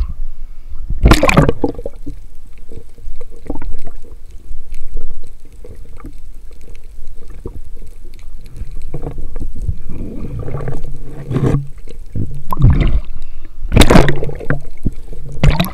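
Water gurgling and sloshing around a free-diving spearfisher, with a few louder splashing rushes about a second in and again near the end.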